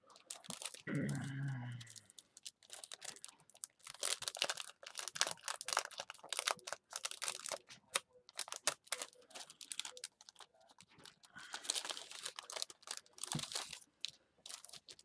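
Clear plastic storage sleeve crinkling and rustling in the hands as a paper die cut is worked out of it, in many short irregular strokes. There is a short murmur of a voice about a second in.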